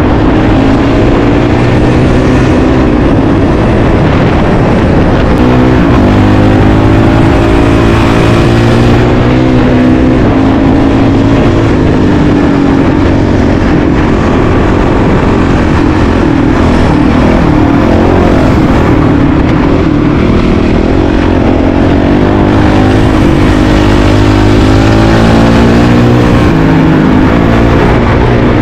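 Honda CRF450RL single-cylinder four-stroke dual-sport motorcycle engine running under load, heard from on the bike, its pitch rising and falling with throttle and gear changes, with a few brief dips in revs.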